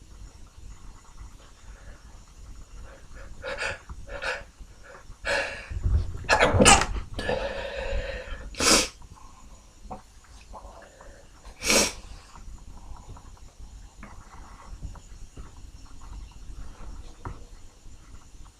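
A man sneezing and sniffling: a run of short sniffs and sharp sneezes from about four to twelve seconds in, the loudest around six to nine seconds, with quieter nasal breathing before and after.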